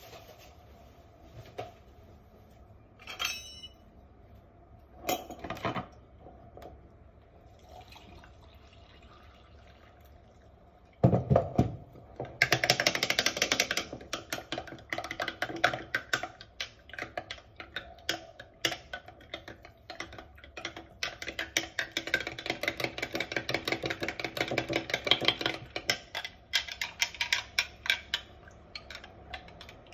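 A few scattered knocks, then a metal spoon stirring a Milo drink in a glass jar: rapid clinking and scraping against the glass, starting after a loud knock about a third of the way in.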